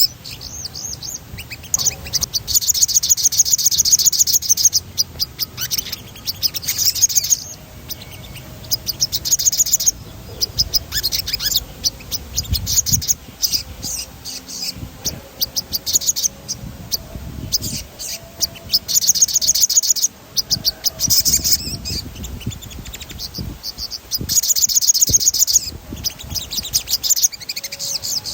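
Sogon bird singing in rolling phrases: fast runs of high-pitched chirping notes, each burst a second or two long, repeated every few seconds.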